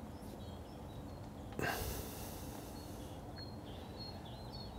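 Quiet riverbank ambience: a steady low background rush with faint small-bird chirps through the second half, and one short breath-like rush of noise a little over a second and a half in.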